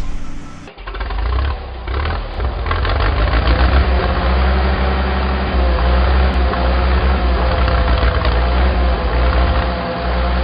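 A heavy vehicle's engine running steadily, a deep rumble with a wavering mid-pitched whine over it. The sound starts abruptly less than a second in.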